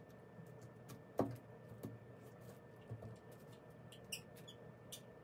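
Faint clicks and rustles of a faux eucalyptus stem being handled and pushed into a hole in a hollow air-dry clay vase, the sharpest click about a second in.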